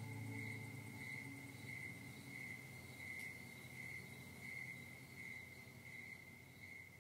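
A steady high-pitched tone pulsing evenly about one and a half times a second, like a cricket's chirp, over a low drone that fades away as the closing music dies out.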